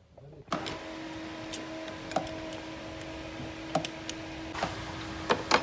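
A steel spanner clinking against a bolted terminal clamp as it is worked loose, giving about six sharp, irregular metallic clicks. A steady low hum runs underneath.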